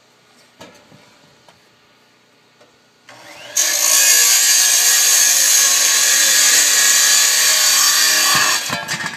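Power saw cutting through a metal solar-panel mounting rail to trim off its overlong end. It spins up about three seconds in, cuts with a loud, steady hiss for about five seconds, and stops near the end.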